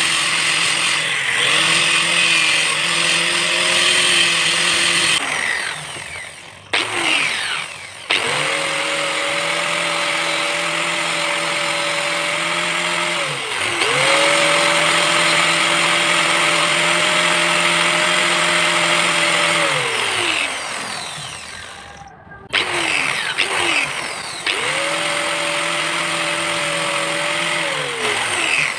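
Electric angle grinder fitted with a buffing wheel running, polishing a rusty steel spanner held against the wheel. The motor whine is steady, winding down and speeding back up several times.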